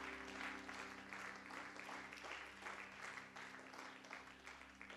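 Congregation applauding faintly, the clapping thinning out near the end, over a faint low steady hum.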